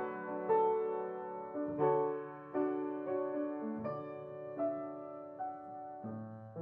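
Slow solo piano music: notes and chords struck one after another, about one or two a second, each ringing and fading.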